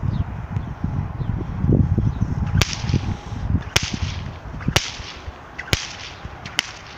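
A short whip cracking five times, about a second apart, each crack sharp with a brief hiss after it. A low rumble on the microphone fills the first few seconds.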